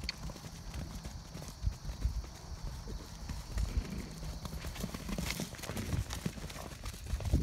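Hooves of several young Morgan horses cantering on grass, a run of irregular dull thuds.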